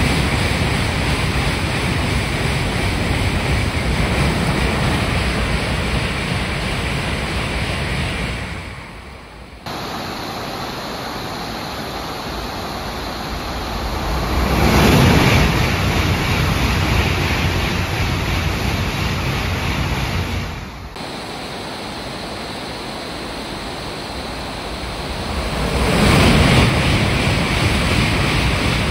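Heavy rain with the rush of N700-series Shinkansen trains passing through a station at speed. The sound drops abruptly at cuts about ten and twenty-one seconds in. It swells loudly as trains go by about fifteen and twenty-six seconds in.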